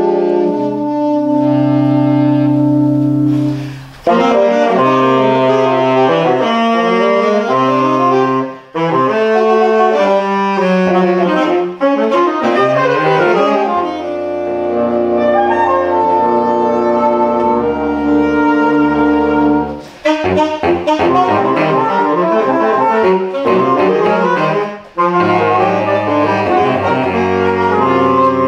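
Saxophone quartet of soprano, alto, tenor and baritone saxophones playing together, held chords over a low baritone line alternating with busy moving passages. The playing breaks briefly between phrases about four, nine, twenty and twenty-five seconds in.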